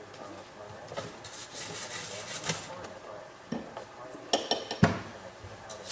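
A toothbrush scrubbing a bakelite radio cabinet in soapy water, followed by a few ringing clinks and a sharp knock about five seconds in as hard pieces are handled.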